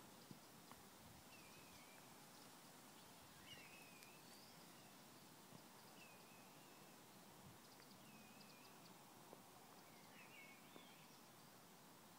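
Faint outdoor quiet with a songbird repeating a short warbling phrase about every two seconds.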